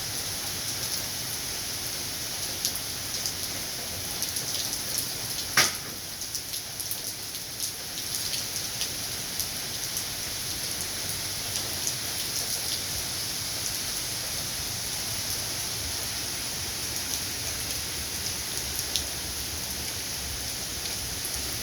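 Steady rainfall, an even hiss scattered with the ticks of individual drops hitting a surface, with one louder sharp tick about five and a half seconds in.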